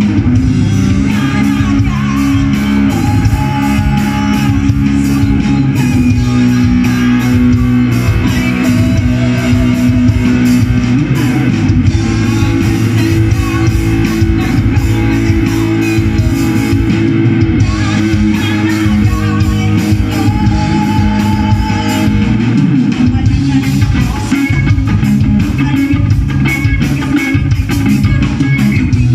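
Live rock band playing loud through a PA: electric guitar, bass and drums with a steady beat, and a woman singing into a microphone.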